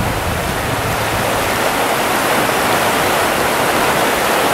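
Steady rush of a shallow, rocky stream running over riffles.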